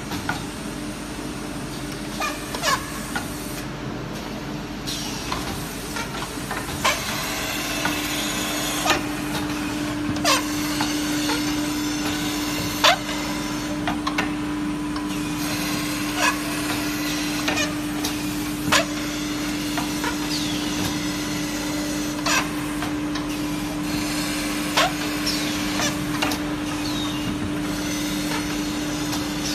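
Automatic melamine tableware edge-grinding machine running: a steady motor hum with grinding noise, broken by sharp clicks and knocks every second or two as the plates are handled and ground. The hum grows louder about eight seconds in.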